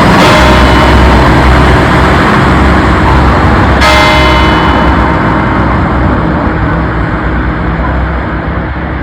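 Whitechapel-cast E-flat hour bell striking the hour, close up in the belfry: two strokes about three and a half seconds apart, each ringing on and slowly fading, over a constant low rumble.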